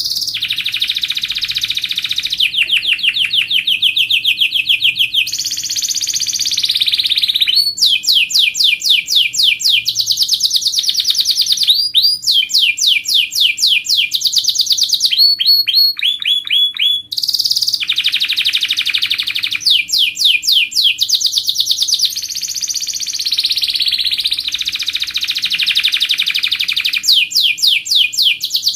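Canary singing a continuous song of rapid trills: each phrase is a fast run of the same note repeated many times a second, and it switches from one trilled phrase to the next with barely a pause.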